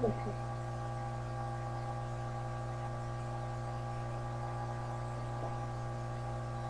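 Steady electrical mains hum with a buzz of overtones, with no programme sound: the digital TV box's audio is muted while it switches channels. A brief snatch of the previous programme cuts off right at the start.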